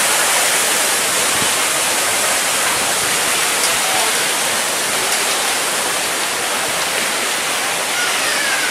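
Steady rush of splashing, falling water.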